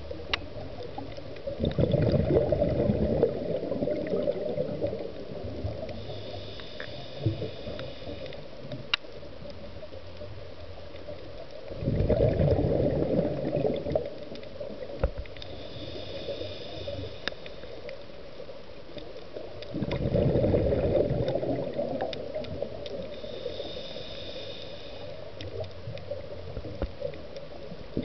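Scuba diver breathing through a regulator underwater. A loud bubbling rush of exhaled air comes about every eight seconds, three times. Between the rushes is a thin, whistling hiss from the regulator on each inhalation.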